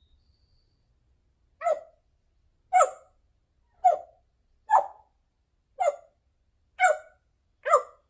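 African grey parrot making seven short calls, about one a second.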